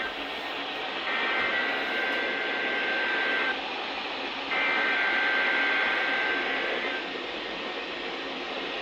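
Weather radio receiving the Specific Area Message Encoding (SAME) header that opens the National Weather Service Required Weekly Test: two two-tone data bursts, each about two and a half seconds long and about a second apart, over steady radio static.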